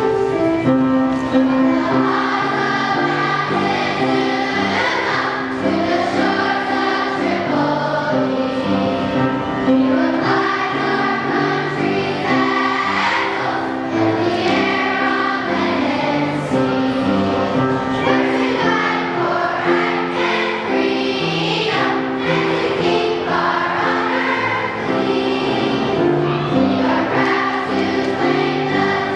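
Children's choir singing a song together over steady instrumental accompaniment.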